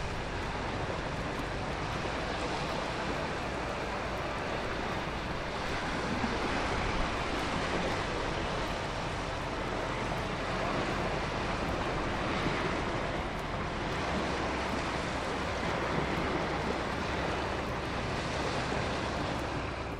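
Sea surf rushing against the shore, a steady wash of waves that swells slightly now and then.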